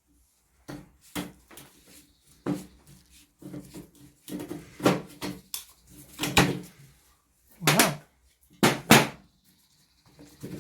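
Irregular knocks and clunks from hand work on a stripped-down car's dashboard and steering column, as parts are worked loose; about half a dozen of them stand out.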